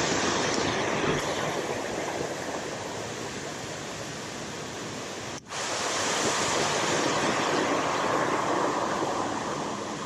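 Steady rush of white water pouring over a concrete spillway and churning below it. The sound cuts out for an instant about halfway through, then comes back a little louder.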